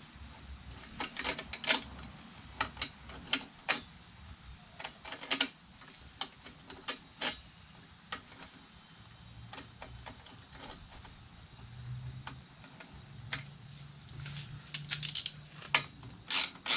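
Hand ratchet clicking in short, irregular runs as bolts on a quad's exhaust heat shield are tightened.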